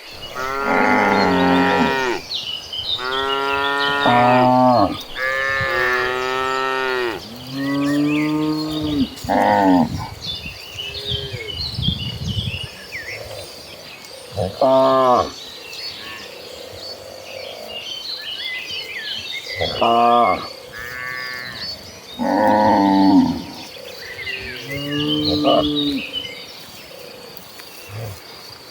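Cattle in a herd mooing again and again: long, drawn-out calls one after another through the first ten seconds, then single moos every few seconds. Faint high chirping runs between the later calls.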